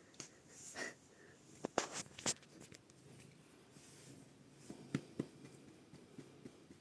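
Light scratching and rustling with a few sharp clicks, a cluster about two seconds in and another about five seconds in.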